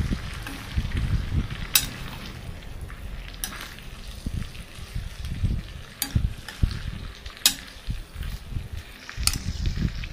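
A metal spoon stirring pork, sliced onions and green chillies in a pan, scraping through the food with five sharp clinks of the spoon against the pan.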